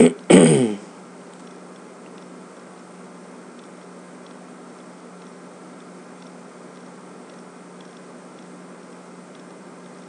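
A brief bit of a man's voice right at the start, then a steady low hum and faint hiss with faint, regular ticking, about two ticks a second.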